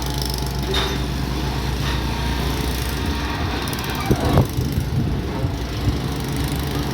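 Excavator's diesel engine running steadily, with a brief clatter a little after four seconds in.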